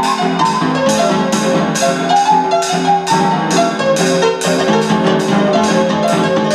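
Electronic keyboard playing a melody over held notes, with a steady beat of cymbal and snare drum strikes about three a second.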